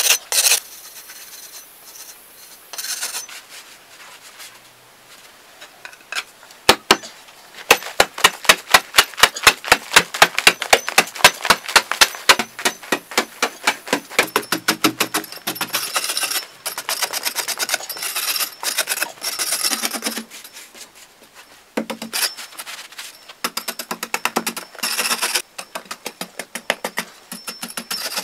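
Metal hand tools working hard packed earth: a flat blade scraping a clay surface at first, then a quick run of sharp, even strikes, about four a second, and after that irregular hoe chops and scrapes in the dirt.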